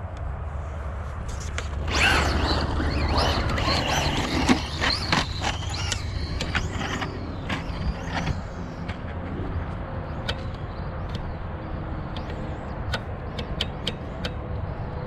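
Traxxas Slash 2WD VXL radio-control trucks running on a dirt track: a motor whine that rises and falls in pitch with throttle, mixed with tyre noise. It is loudest from about two to seven seconds in, then fainter, with scattered sharp clicks near the end.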